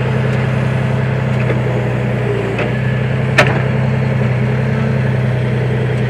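Tractor engine running steadily under the backhoe loader attachment's work. About halfway through there is a single sharp metallic click.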